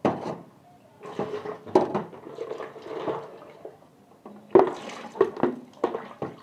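Water splashing and sloshing in a plastic jug at a kitchen sink as raw chicken is rinsed, in irregular bursts with a few sharper splashes, the loudest about four and a half seconds in.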